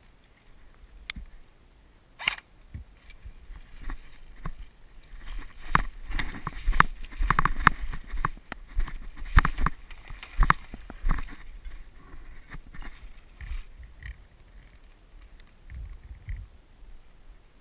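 Irregular knocks, scuffs and rustles of a player moving on foot with gear, close to the microphone. They are densest and loudest in the middle stretch and thin out towards the end.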